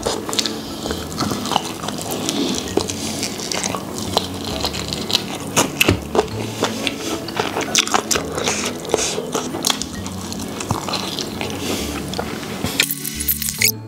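Close-miked eating sounds: wet chewing, lip-smacking and sucking as sauce-coated meat is eaten off the bone, with many sharp clicks and smacks throughout.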